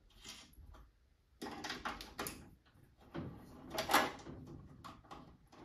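Hand tool working the 10 mm bolts on an NTI TRX combi boiler's burner door: scattered metallic clicks and rattles, in two bunches about a second and a half in and again about three seconds in.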